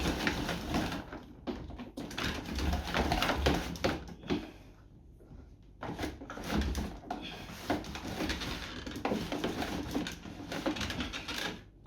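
Rustling, rubbing and clicking as a thick power cable is pushed and worked through the plastic entry of a pressure washer's switch box, with a quieter pause about halfway through.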